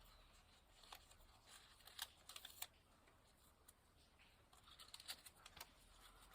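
Near silence broken by faint scattered clicks and scratches: handling noise from a stethoscope being moved on the chest between breaths.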